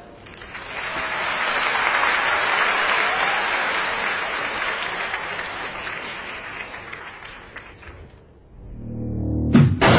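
Studio audience applauding, swelling in quickly and then slowly fading away. Near the end, music starts with a low swelling tone and then sharp hits.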